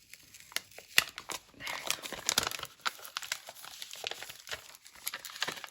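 Plastic packaging crinkling and rustling as planner sticker kits are handled, with a few sharp clicks about a second in and a denser run of crinkling in the middle.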